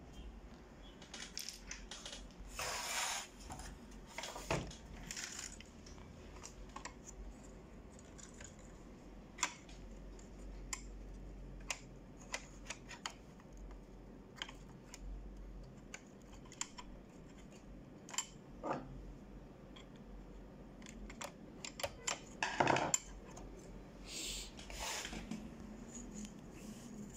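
Scattered clicks, taps and scrapes of metal and plastic parts being handled as the carriage rod and ribbon drive assembly are worked out of an Epson LQ-310 dot-matrix printer. A few louder rattling scrapes come about three seconds in and again near the end.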